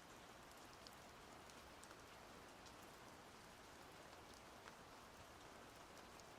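Faint, steady splashing of falling water, with many small droplet ticks scattered through it.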